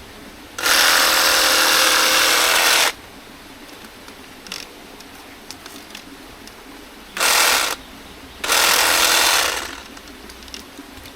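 Reciprocating saw with a pruning blade running in three bursts, a long one of about two seconds, then two short ones near the end, cutting hands of bananas from the stalk.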